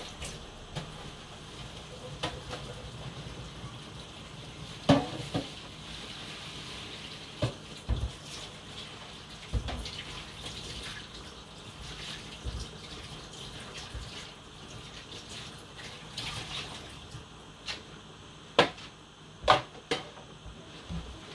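Steady running or bubbling of water in a kitchen, with a few sharp knocks and clinks of pots and dishes, the loudest about five seconds in and two more close together near the end.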